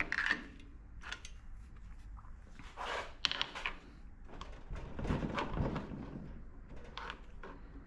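Steel pry bar scraping and knocking against the crankcase of a small air-cooled diesel engine as the case cover is pried loose. The scrapes and knocks come irregularly, fuller at about three seconds in and again around five to six seconds in.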